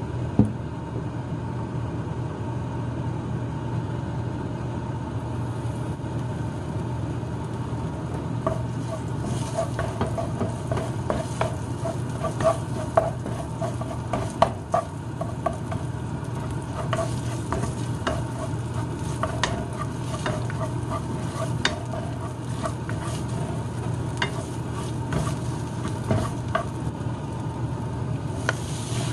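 Spice paste sizzling in hot oil in a nonstick wok, stirred with a wooden spatula that scrapes and taps against the pan. The stirring starts several seconds in, and a steady low hum runs underneath.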